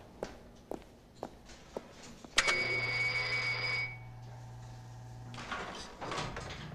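Footsteps on a hard floor, about two a second, then a sudden bell-like ring that fades within a couple of seconds over a low hum lasting about three seconds.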